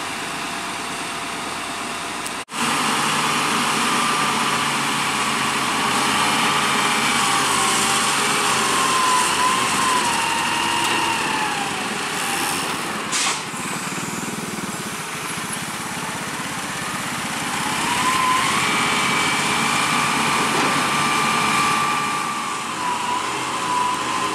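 Hitachi hydraulic excavator's diesel engine running steadily, with a whine that rises and falls in pitch as it works. The sound breaks off abruptly about two and a half seconds in and comes back louder.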